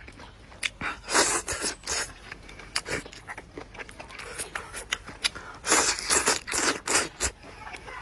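Close-up eating sounds of a person eating stewed chicken: wet chewing and scraping noises with sharp clicks, and louder clusters about a second in and again near six seconds.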